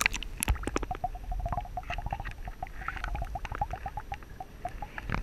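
A dense, irregular chatter of short squeaky animal calls mixed with clicks, several a second.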